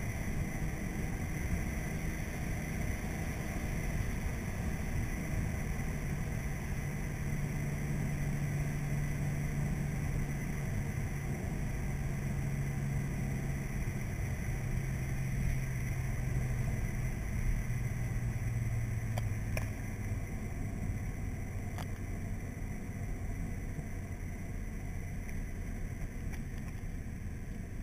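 Car engine and road noise heard from inside the cabin while driving: a steady low rumble with an engine hum that slowly falls in pitch through the middle, easing slightly after about twenty seconds.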